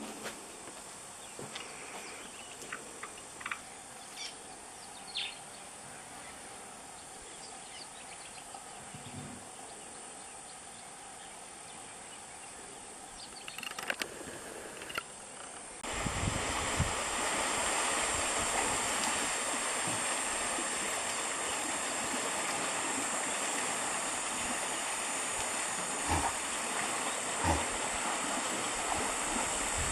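Outdoor bush ambience with a few faint short chirps in the first seconds. About halfway through it steps suddenly up to a louder steady rushing noise that lasts to the end.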